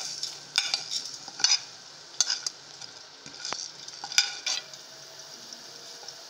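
Onions frying in hot oil in a large metal cooking pot, sizzling steadily as whole spices are tipped in. A steel ladle scrapes and clinks against the pot several times, sharpest a little past four seconds in.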